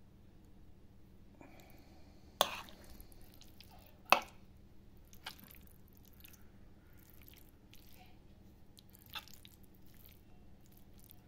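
Metal spoon stirring cooked fusilli pasta in a frying pan: soft squishing of the pasta, with two sharp clinks of the spoon against the pan a little over two and about four seconds in, and a few fainter taps later.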